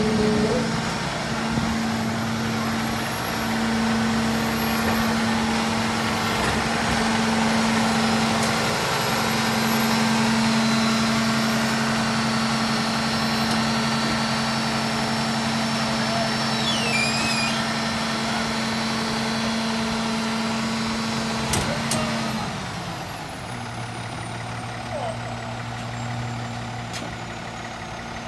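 Garbage truck engine running steadily at raised revs with a high whine above it, then dropping to a lower, quieter idle about three-quarters of the way through as the whine falls away.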